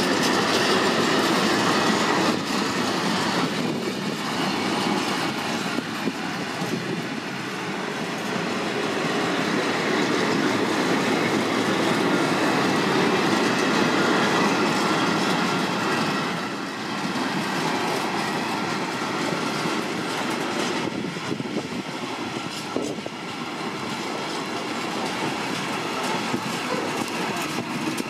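A long freight train of sliding-hood steel-coil wagons (Shimmns type) rolling past close by, its wheels running continuously over the rails.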